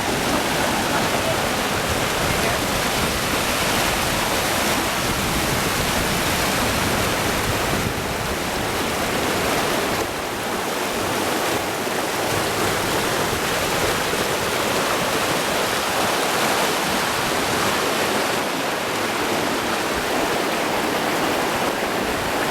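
Waterfall and stream running steadily: a full, even rush of falling water, with the stream running high and coming down well.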